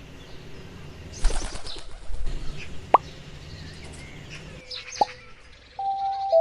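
Three separate drop-like plops, each a quick rising blip, over faint bird chirps, with a brief rustle in between; music comes back in near the end.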